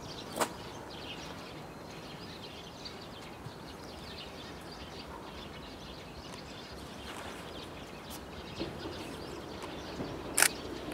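Quiet outdoor background with faint bird chirps and two sharp clicks, one about half a second in and one, louder, near the end. The sound of an approaching electric train rises a little near the end.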